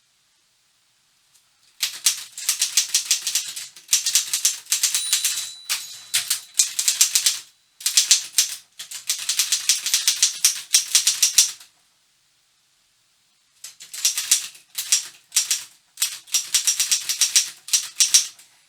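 1952 Continental Standard office typewriter being typed on: rapid runs of sharp key-and-typebar strikes lasting a few seconds each, with a pause of about two seconds past the middle.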